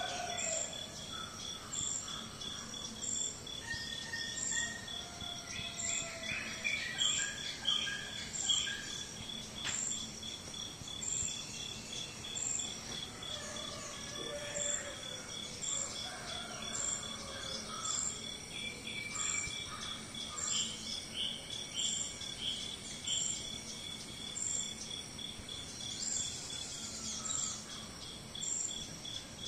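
Insects trilling steadily: one gives a fast, even, high-pitched pulsing trill, another a short higher note repeated about every second and a half. Scattered bird chirps and whistles sound over it.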